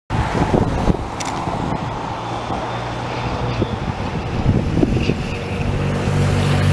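Motor vehicle engines running with a low, steady hum that grows louder and fuller near the end. A few light knocks come in the first second.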